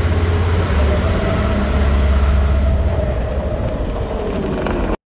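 An engine running steadily with a heavy low rumble and hiss; a faint tone slides slowly lower near the end before the sound cuts off suddenly.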